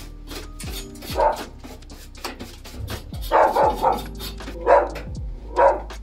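A dog barking repeatedly, in single barks and quick runs of two or three. Under it runs background music with deep bass notes that slide downward.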